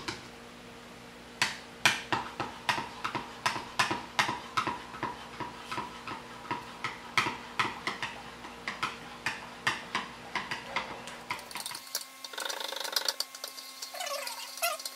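Spoon clinking against a ceramic mixing bowl as cream and condensed milk are stirred, about three strokes a second. About twelve seconds in, the clinking stops and a different, hazier sound takes over.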